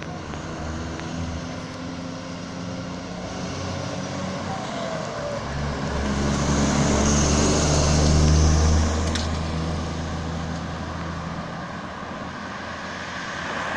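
A Volkswagen poultry truck's diesel engine running as the truck drives past close by, with tyre noise, swelling to its loudest about eight seconds in and then fading as it pulls away.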